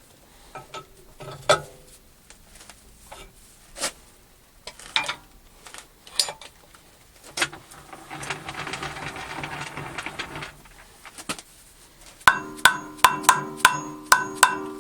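Hammer taps on a workpiece held in a lathe chuck as it is dialed in true. Scattered single knocks, a rattling scrape near the middle, then a quick run of about seven ringing metallic taps near the end.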